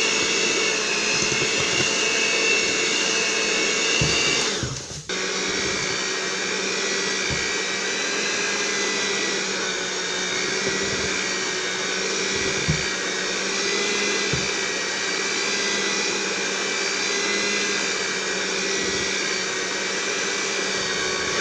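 Electric mixer motor running steadily at medium-low speed, beating banana bread batter. It dips out briefly about five seconds in, then runs on at a slightly lower pitch.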